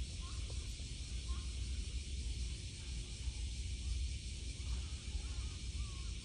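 Outdoor ambience: a steady low rumble and an even high hiss, with faint short chirping calls about once a second and longer curving calls in the second half.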